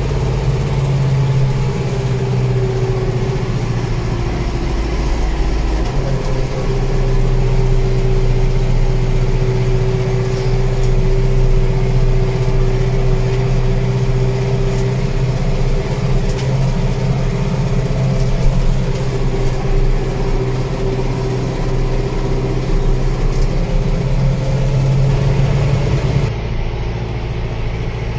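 Zetor Proxima GP 110 tractor's four-cylinder diesel engine running steadily under load, heard from the cab, pulling a Pronar trailer on a climb. A steady whine rides over the engine hum, and the engine note shifts about six seconds in and again near the end.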